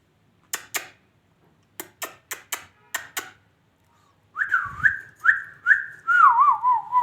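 Pet lovebird giving a series of short sharp clicks, then a run of loud whistled notes that wobble quickly up and down in pitch.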